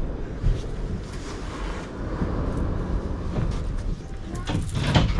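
Low, steady rumble inside the cab of a Shonan Monorail suspended-monorail car, with a single click about half a second in and a quick cluster of clicks and knocks near the end.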